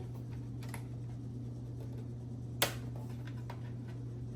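Light clicks and taps from hands handling the inside of a desktop PC, with one sharp click about two and a half seconds in, over a steady low hum.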